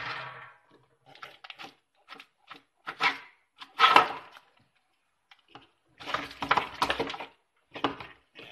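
Irregular crunching and clicking of a chinchilla gnawing a dry corn cob in a plastic food bowl, in short scattered bouts with louder stretches about three to four seconds in and again around six to seven seconds.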